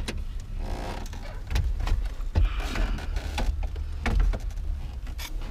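Alpine head unit's casing and its wiring harness knocking, clicking and scraping against the Holden VE Commodore's plastic dash as the unit is worked into the opening and its wires are pushed through, with scattered sharp knocks over a low rumble.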